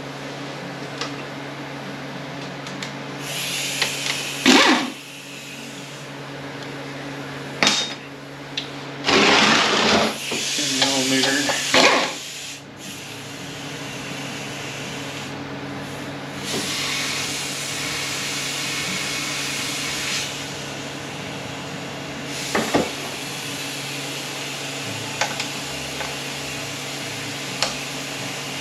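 Tools working on an automatic transmission case during teardown: a few sharp metal clanks and about three seconds of noisy tool work near the middle, over a steady shop hum.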